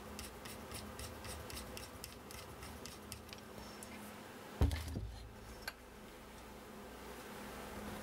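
Light, irregular metallic clicks from a screw and small parts being worked by hand on a laser engraver's aluminium frame. About halfway through comes a single thump as something is set down on the workbench, followed by a smaller click.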